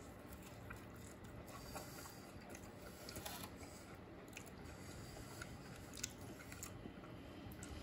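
Faint chewing and biting of food: scattered small crunches and clicks.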